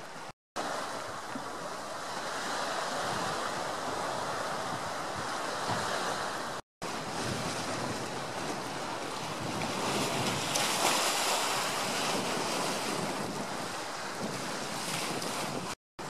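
Choppy sea waves washing, with wind rushing on the microphone: a steady, even rushing noise that drops out to silence briefly three times.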